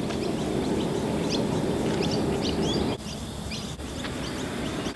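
Small birds chirping in short, scattered high calls over a steady low rushing noise that drops away about three seconds in.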